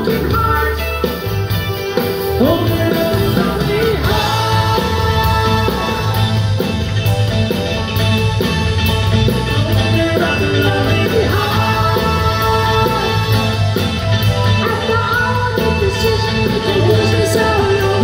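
Live rock band playing electric guitars, bass, keyboards and drums, with a woman singing lead, heard from the audience in a concert hall.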